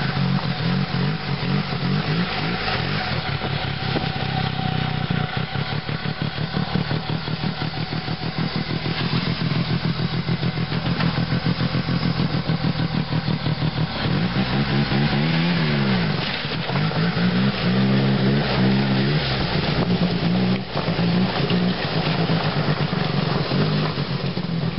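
1973 Alouette Silver Cloud snowmobile's Wankel rotary engine running as the sled is ridden, on its first run in over 30 years. It holds a steady buzzing note, then revs up and down several times in the second half.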